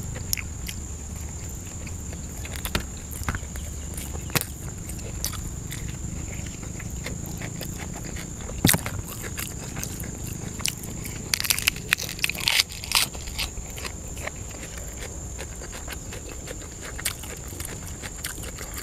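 Close-up mouth sounds of a person chewing grilled sausage: scattered wet clicks and smacks, with a busy flurry of them a little past the middle.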